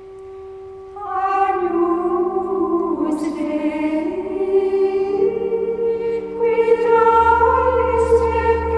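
Background music: a single held tone, then sustained choir-like voices and synthesizer chords entering about a second in, with a deep bass note joining near the end.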